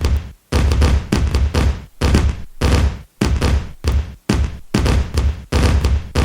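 Strings of firecrackers going off in rapid volleys of crackling bangs. The volleys last under a second each, with short gaps between them, about six in all.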